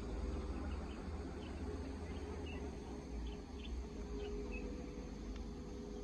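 Outdoor park ambience: a steady low rumble with a faint steady hum, and a few faint, short high chirps scattered through the middle.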